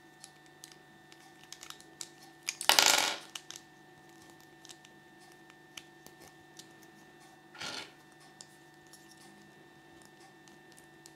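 Small plastic toy parts clicking and clattering as fingers handle them: scattered light ticks, with a louder rattling burst about three seconds in and a shorter one near eight seconds.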